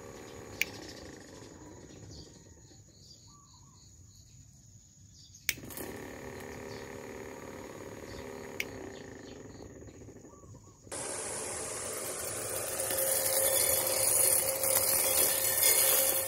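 Homemade grass cutter driven by a 24 V electric motor switching on abruptly about eleven seconds in, then running with a steady hum under a loud rasping whir that grows louder as the head cuts into the weeds. Before that there is a quiet background with three sharp clicks.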